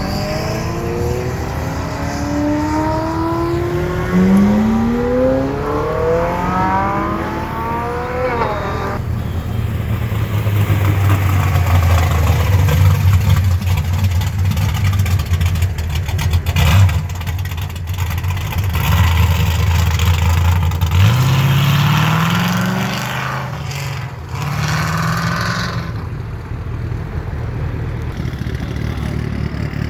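Car engine revving and accelerating: its pitch climbs steadily for the first several seconds and breaks off suddenly. A steady low engine drone follows, with another short rise in pitch about two-thirds of the way through.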